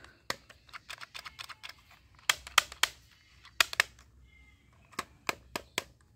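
Sharp plastic clicks and taps from a plastic toy pistol being handled, a dozen or so in irregular clusters.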